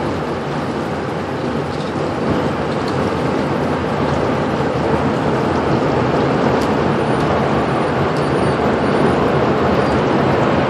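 Steady rushing rumble of a violent tornado and its winds close by, with rain, growing slightly louder as it nears.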